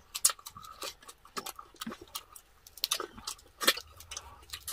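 Close-miked eating: irregular wet mouth clicks and lip smacks from chewing roast pork knuckle and sucking on orange slices, a scatter of sharp little clicks with no rhythm.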